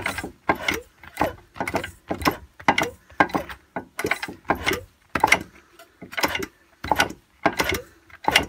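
Old Suffolk Punch lawnmower engine turned over slowly by hand without firing, checking for a spark after its points were cleaned. Each turn gives a short burst of mechanical clicking and whirring, repeating about twice a second.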